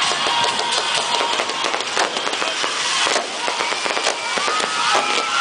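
Aerial fireworks going off in quick succession: a dense run of crackling pops and bangs from bursting shells and rising rockets.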